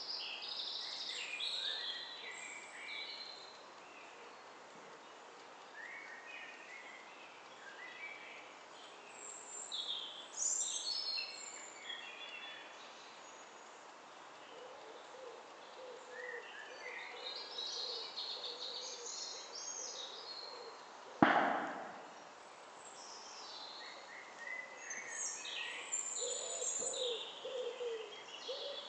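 Several small birds chirping and singing at once, in short high phrases throughout, with a lower repeated call joining in during the second half. A single sharp knock about two-thirds of the way through is the loudest sound.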